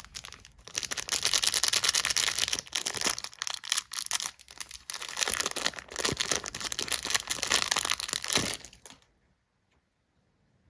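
Packaging crinkling and tearing as it is unwrapped by hand: a dense crackle that stops suddenly about nine seconds in.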